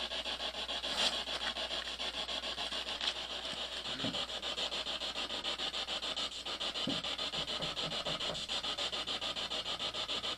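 Steady static hiss, pulsing rapidly and evenly, with a few faint short low blips in the second half.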